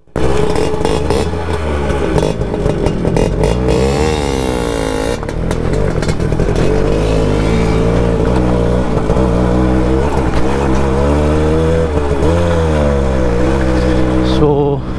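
Suzuki Max 100's two-stroke single-cylinder engine running as the bike is ridden along a gravel track, its pitch rising and falling with the throttle. Wind buffets the microphone.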